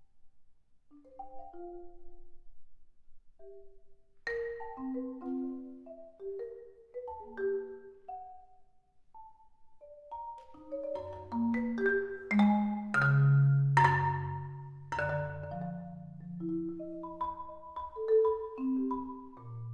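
Solo marimba played with four mallets: scattered single struck notes and short figures, sparse at first, then growing dense about halfway through with low notes ringing under quick high strokes, and thinning out again toward the end.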